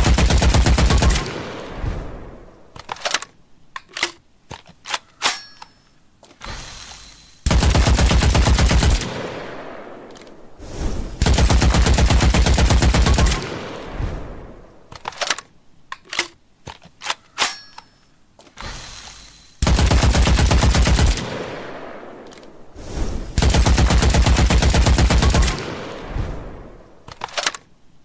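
Machine gun sound effect: long bursts of rapid automatic fire, five of them, each ringing out in an echo. Scattered single clicks and metallic clinks sound between the bursts.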